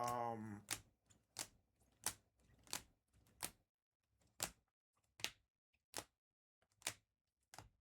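Trading cards being flipped through and set down one at a time, a sharp click about every two-thirds of a second, around ten in all.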